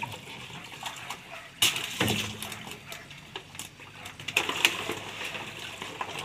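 Water splashing and sloshing as a plastic basket is dipped into a floating fish-cage net, with a sharp knock about one and a half seconds in and a louder burst of splashing past four seconds.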